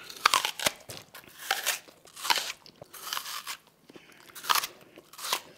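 A crisp apple being bitten into and chewed: a loud crunchy bite right at the start, then a run of irregular crunching chews.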